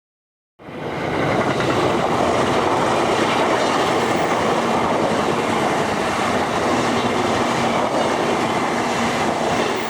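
Train running on the rails, a loud steady running noise that starts abruptly about half a second in.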